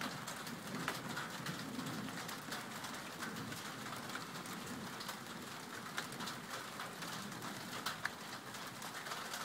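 Steady rain falling, with many sharp ticks of single drops landing close by.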